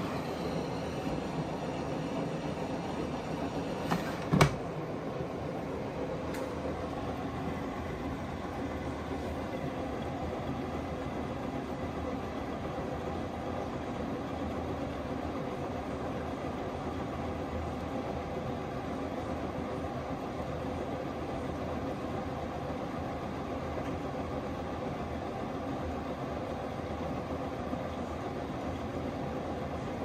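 Samsung front-loading washing machine running a wash, a steady hum and churn as its drum turns through sudsy water. A sharp knock sounds about four seconds in.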